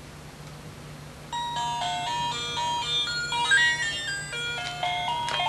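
A battery-powered electronic toy playing a tinny beeping tune, starting about a second in, its notes stepping up and down with two or three sounding together.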